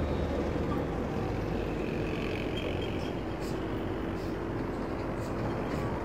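Road traffic: a heavy truck's engine hums low as it goes by, fading out about a second in, then a steady noise of passing cars and tyres on the road.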